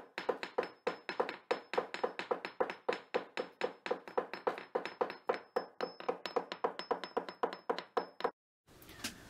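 Rapid, even tapping or knocking, about five strikes a second, that stops suddenly a second before the end.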